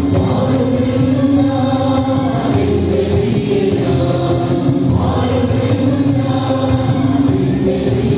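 A worship band playing slow music: electric bass guitar, keyboard and electric guitar, with long held chords that change every second or two over a steady bass line.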